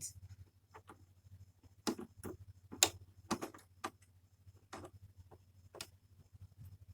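Irregular small clicks and taps of a metal ruffler foot being seated on a domestic sewing machine's needle plate and needle clamp, about ten in all, the loudest near the middle.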